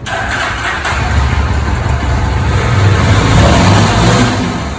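Yezdi Scrambler motorcycle engine started and revved; the sound comes in suddenly, builds to its loudest about three and a half seconds in, then eases back.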